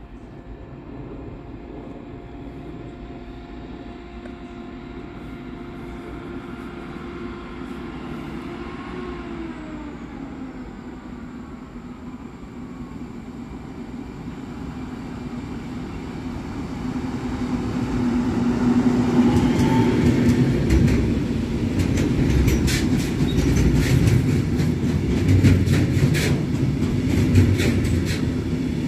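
A freight train approaching and passing: the steady drone of a diesel hood locomotive grows louder, its engine note dropping about nine seconds in. From about nineteen seconds on, a long string of hopper wagons rolls by with a low rumble and the repeated clatter of wheels over rail joints.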